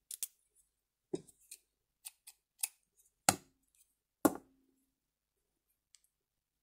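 Irregular small clicks and taps from sewing tools and supplies being handled on a hard tabletop while switching to white thread. Two sharper knocks come about three and four seconds in, the second ringing briefly.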